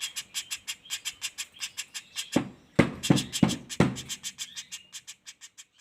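Juvenile common flameback woodpecker giving its fast rattling roll call without a break, about ten notes a second, fading out near the end. About halfway through, five loud knocks sound over the rattle.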